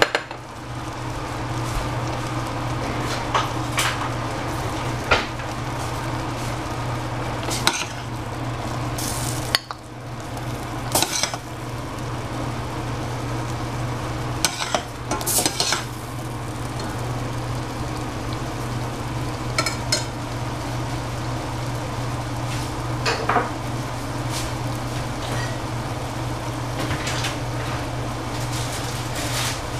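Food sizzling in a frying pan while a spatula stirs it, scraping and clinking against the pan at irregular moments, over a steady low hum.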